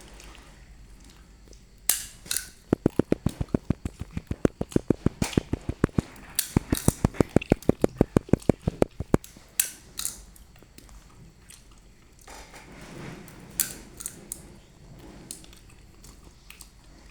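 A rapid, even run of sharp knocks, about six a second, in two bursts of a few seconds each, with a few single knocks before and after.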